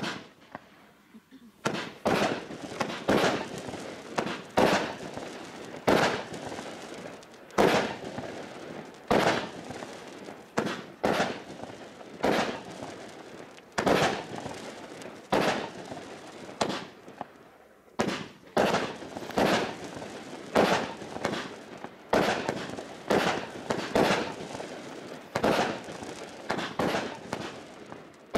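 Bright Star Goliath 84-shot barrage firework cake firing: a steady string of sharp bangs, roughly one to two a second, each trailing off before the next.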